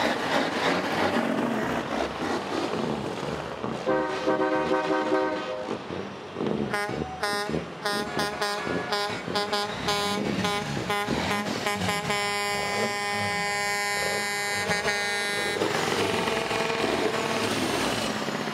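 Semi-trucks rolling past with their engines running while truck air horns sound: a blast about four seconds in, a rapid run of short toots, then one long horn blast from about twelve to fifteen and a half seconds in.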